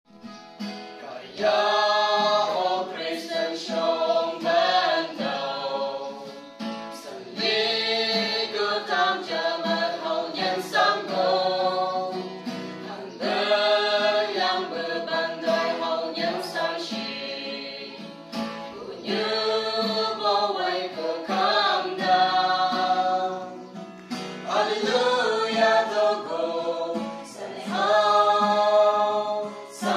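A small mixed group of men and women singing a gospel song in harmony, accompanied by a strummed acoustic guitar, in phrases a few seconds long with short breaks for breath.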